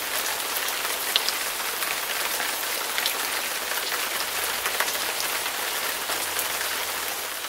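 Steady rain: a dense, even hiss dotted with small drop ticks, starting to fade at the very end.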